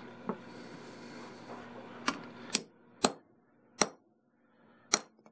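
Hammer striking a steel punch set on an aluminium wire-rope ferrule, denting it to crimp the sleeve onto the rope. Five sharp strikes at uneven intervals, starting about two seconds in, after one faint tap.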